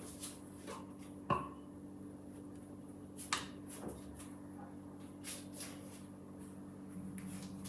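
A few faint clicks and taps from small toiletry bottles being handled, the sharpest about a second in, over a steady low hum.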